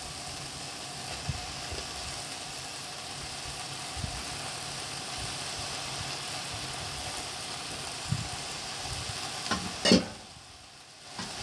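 Onion and tomato frying in oil in a non-stick pan, with raw turkey pieces just added, making a steady sizzle. A few light knocks come from stirring, and a sharper knock comes near the end, after which the sizzle briefly drops away.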